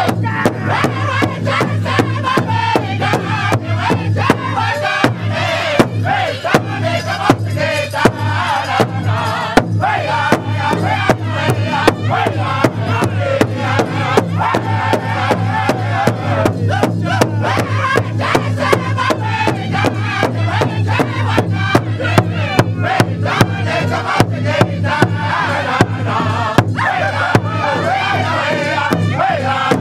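Powwow drum group singing together in loud, high voices while all the singers beat one large shared hand drum with padded sticks in a steady unison beat.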